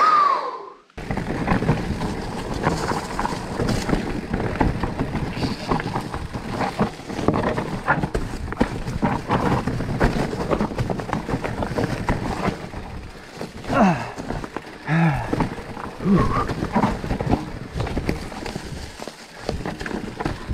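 Electric mountain bike (Specialized Turbo Levo) riding fast down a rocky trail: tyres crunching over stones and dry leaves, with a continuous rattle of the bike and frequent knocks. A short falling squeal right at the start, and a few brief voice sounds a little past the middle.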